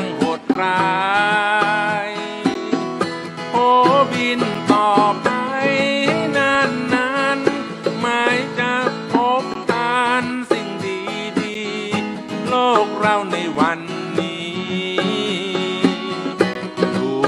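Band music with plucked strings under a lead melody that wavers with vibrato.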